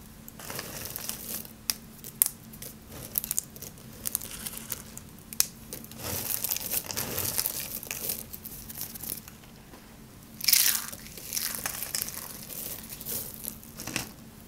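Dry, hard soap curls and shavings crunching and crackling irregularly as hands press and rub through a pile of them, with a few sharp snaps of pieces breaking; the loudest crunch comes about two-thirds of the way in.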